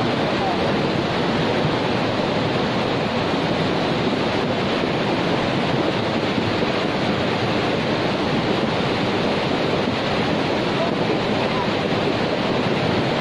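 Fast-flowing floodwater in a swollen river, rushing steadily.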